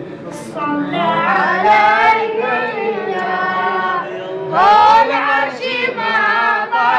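Unaccompanied group of men and boys singing a Mawlid devotional chant in praise of the Prophet, a boy's high voice prominent among them, with pitch bending through long held notes.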